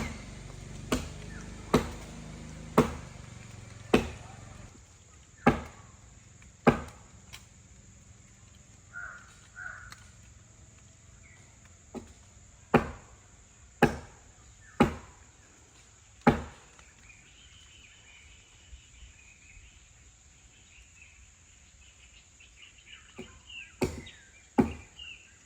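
A heavy tool striking wood in single sharp blows, about one a second, in three runs with pauses between them. Faint bird calls sound in the gaps.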